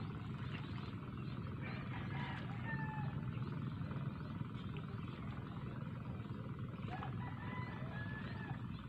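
Steady low rumble of wind buffeting the microphone, with a few short, faint bird chirps about two seconds in and again near the end.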